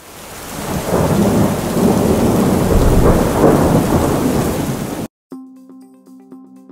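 Thunderstorm sound effect: loud rolling thunder over rain, swelling up over the first second and cutting off suddenly about five seconds in. Music starts right after.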